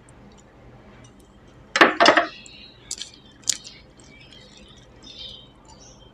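A small glass bowl clinking as it is set down. There are two sharp knocks close together about two seconds in, with a brief ring, then a few lighter clicks.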